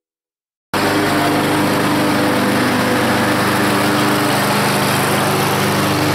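Troy-Bilt 21-inch self-propelled push mower's small petrol engine running steadily at a fixed speed, cutting in suddenly about a second in. Right at the end its pitch starts to drop as the engine begins to wind down.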